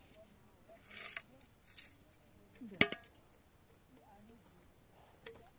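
Metal cookware clinking once, sharply and with a short ring, just before three seconds in. Two brief scuffing noises come before it, as the metal baking sheet and dishes for flatbread are handled.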